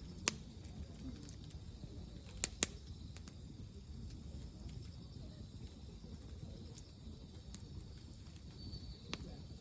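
A few sharp snaps: one just after the start, two in quick succession about two and a half seconds in, and one near the end, over a steady low rumble and a faint, steady high hiss.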